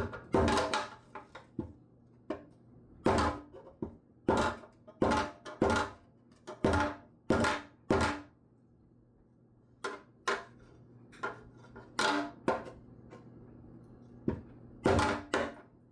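Hammer blows tapping down the high spots on a dented sheet-metal engine part to flatten it. There are about thirty irregular strikes, several in quick runs, each with a short metallic ring, and a pause of about a second and a half just after the middle.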